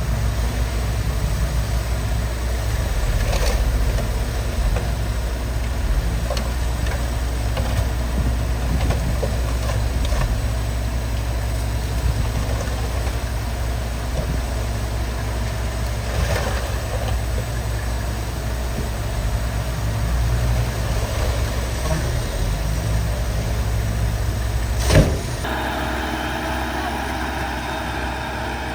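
Heavy earthmoving machinery's diesel engine running steadily with a low drone, with a few faint knocks and one sharp, loud knock a few seconds before the end.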